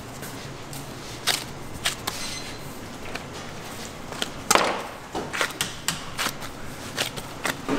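Bagel dough being cut and handled on a wooden workbench: irregular sharp knocks and taps of the blade and hands on the board, the loudest about halfway through.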